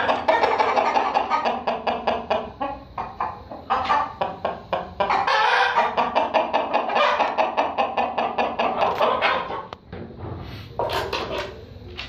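Background music with a fast, rhythmic beat, with a rooster's clucking mixed in. The sound drops away briefly near the end and then picks up again.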